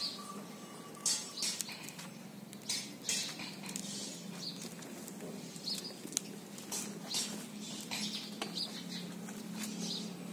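Goat pen ambience: scattered short, high chirps and sharp clicks and rustles over a steady low hum.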